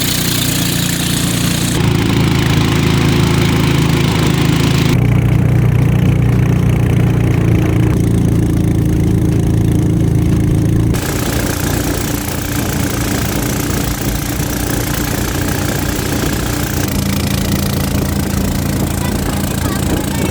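Motorboat engine running steadily with a low drone and some hiss over it, the tone changing abruptly a few times.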